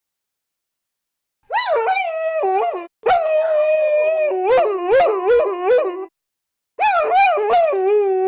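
Dogs howling: after a second and a half of silence, three long howling bouts with brief gaps between them, the pitch swooping up and down and wavering quickly in the middle bout.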